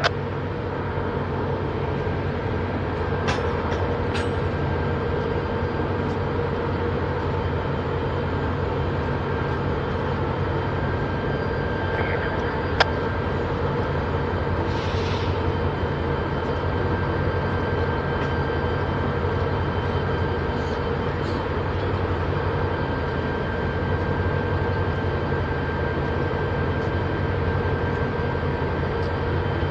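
NYSW diesel-electric locomotive 3634 moving slowly as a light engine, its diesel engine running with a steady low rumble and a held whine. There is a single sharp click about 13 seconds in.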